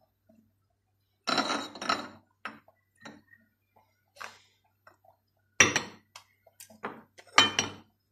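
Small glass jars being handled, clinking and knocking now and then, with the loudest clatters about a second and a half, five and a half and seven and a half seconds in.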